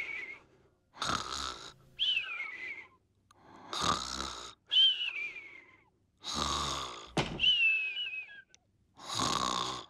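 An old man snoring in his sleep, three times over: each time a rasping in-breath, then a whistling out-breath that falls in pitch.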